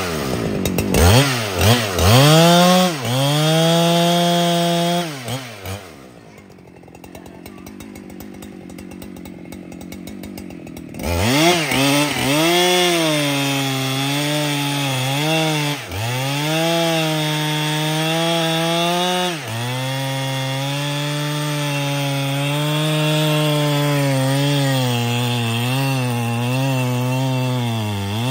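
Husqvarna 395XP two-stroke chainsaw revving in short blips, then dropping to a quiet low run for about five seconds. It then goes back to high revs, cutting into a large tree trunk, its pitch dipping briefly twice under load.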